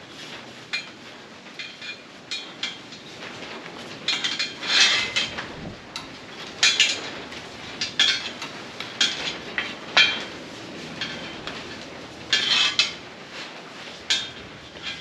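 Steel wire cable wound by hand around a steel bar, clinking and scraping against the metal in irregular short scrapes and clicks, with some light metallic ringing.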